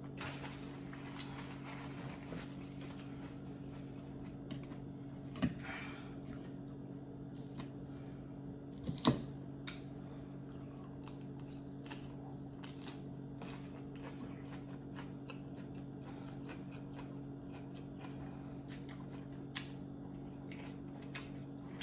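Quiet eating: occasional soft chewing and a few short clicks of a fork on a plate, over a steady low hum.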